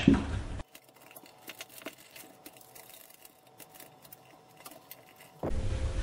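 Faint, scattered small clicks and ticks of electrical wires and a plastic GFCI receptacle being handled as the wires are connected, over near silence.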